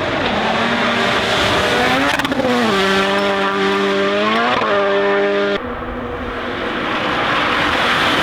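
Rally1 cars at full speed, their turbocharged engines running high in the revs with tyre and road noise. About two seconds in, the engine note drops in pitch with a few sharp cracks and then holds steady. About five and a half seconds in, it cuts to a second car that comes up louder, with more rushing noise.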